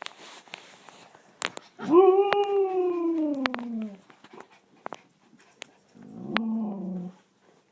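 Dog howling twice: a long howl of about two seconds that rises and then slowly falls in pitch, then a shorter, lower howl near the end. A few sharp clicks are heard between them.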